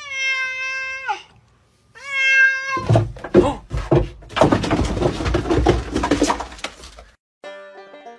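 Domestic cat meowing twice: two long, drawn-out meows, the first dropping in pitch as it ends. This is followed by several seconds of loud, rough, harsh noise.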